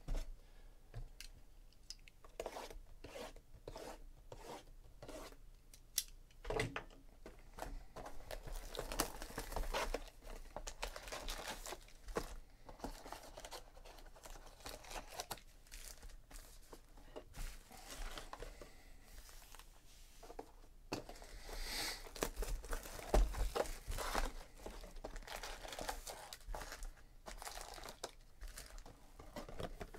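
A cardboard trading-card box being torn open and its wrapped card packs crinkling and rustling as they are pulled out and handled, with many short crackles and a few longer tearing stretches.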